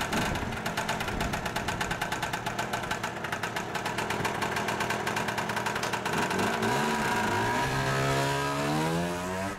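Lambretta GP scooter's two-stroke single-cylinder engine running with a fast, even pulse. Near the end it revs up, rising in pitch as the scooter pulls away.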